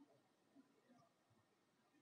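Near silence, with a few faint, brief ticks.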